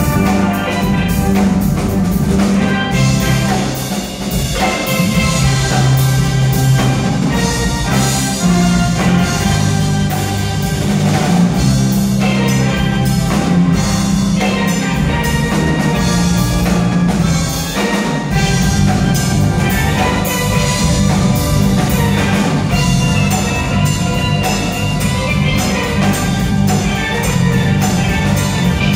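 A steel band playing a rock tune: steel pans carry the melody over an electric bass guitar and a drum kit with a driving beat. The bass drops out briefly about two-thirds of the way through.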